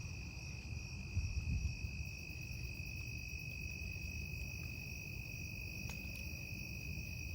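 Crickets trilling in a continuous high drone, with a brief low rumble on the microphone a little over a second in.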